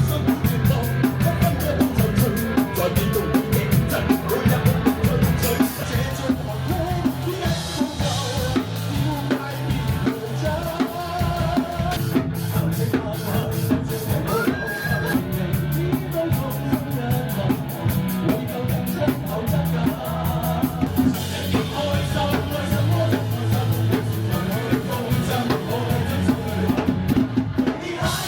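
Live band playing a Cantonese pop medley, the drum kit keeping a steady, busy beat under sustained instrument lines.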